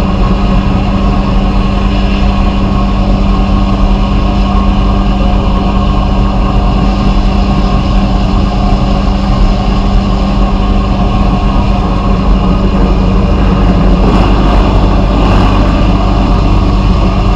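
A machine running steadily, with a strong hum and hiss throughout; the hiss shifts a little about fourteen seconds in.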